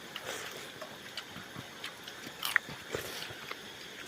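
A person chewing and biting food: scattered small wet clicks and crunches, with a couple of sharper bites about two and a half and three seconds in.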